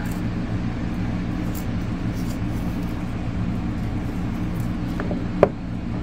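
Steady low mechanical hum, with a single sharp knock about five seconds in.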